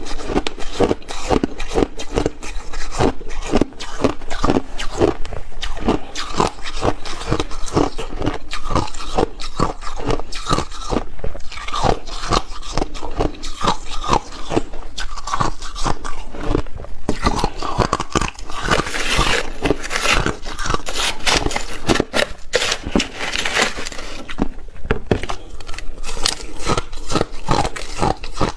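Ice being bitten and chewed, a steady run of crisp, crackling crunches with no pauses.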